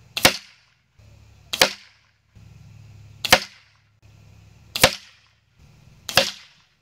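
Weihrauch HW97K .22-calibre underlever spring-piston air rifle fired five times, about one and a half seconds apart, each shot a sharp crack with a short fading tail.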